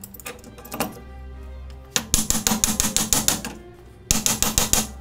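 Hand socket ratchet clicking in two quick runs of about eight clicks a second as bolts are run in and tightened, joining a car's rear hub to its backplate. Background music plays underneath.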